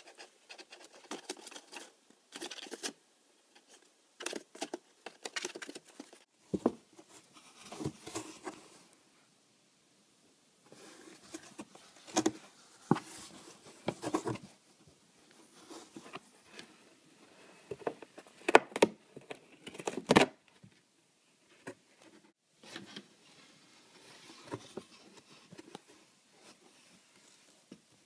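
Cardboard box rustling, scraping and bumping irregularly as a Sphynx cat moves and paws around inside it, with a few sharper knocks about two-thirds of the way in and short pauses between bouts.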